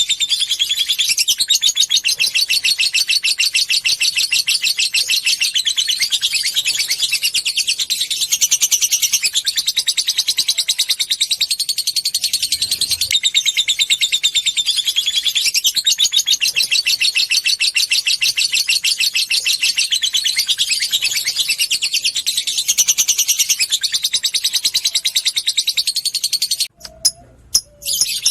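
Lovebird giving a long ngekek: a loud, fast, high-pitched chattering trill that runs almost without a break and shifts pitch every few seconds. It cuts off abruptly about a second and a half before the end, then comes back in short bursts.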